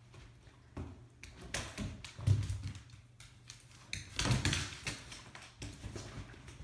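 A Basenji tossing a toy around: thumps and taps of the toy and the dog's paws on a hardwood floor, in bursts, with the loudest thuds about two and four seconds in.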